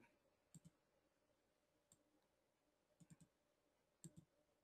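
Faint computer mouse clicks, mostly in quick pairs, spread over near silence.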